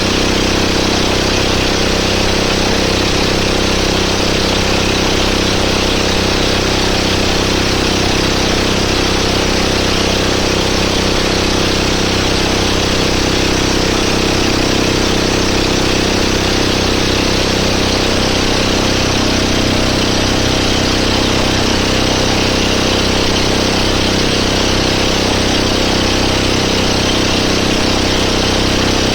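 Motorboat engine running steadily at an even speed, with a dense rushing noise over it.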